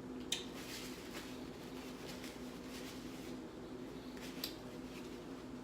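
Soft chewing and mouth sounds of someone eating fried chicken, with two short sharp clicks, over a steady low hum.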